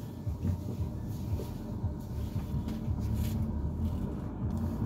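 Steady low rumble of a car heard from inside the cabin while driving, engine and road noise with a faint hum.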